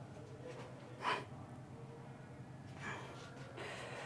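A person breathing out hard, winded from heavy lifting: one short, sharp exhale about a second in and a softer one near three seconds. A steady low hum runs underneath.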